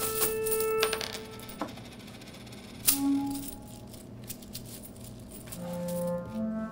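Coins clinking and clicking against each other as they are handled in a palm: a run of sharp clicks in the first second and a single loud clink near three seconds in. Soft background music with held woodwind notes plays underneath.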